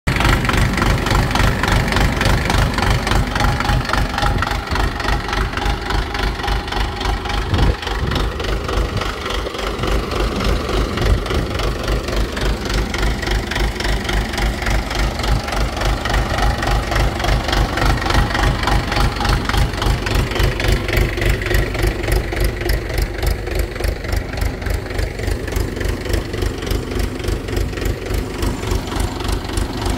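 Mahindra 475 DI tractor's four-cylinder diesel engine running steadily at idle, with an even, regular pulsing beat.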